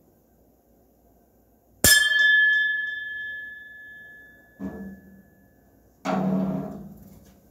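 Drum kit played in single strokes: one sharp strike on a metal bell-type percussion piece, its clear ringing tone fading over about four seconds. Two drum hits follow, the second one louder.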